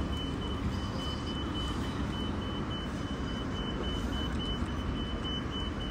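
Street traffic: a steady hum of passing cars. Over it, a high, thin electronic beep pulses evenly, the audible signal of a pedestrian crossing.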